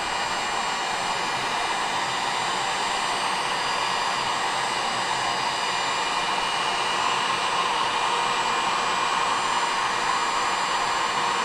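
Heat gun blowing steadily, warming a Yamaha Raptor 700 engine case so the crankshaft bearing seat expands to take the frozen crank.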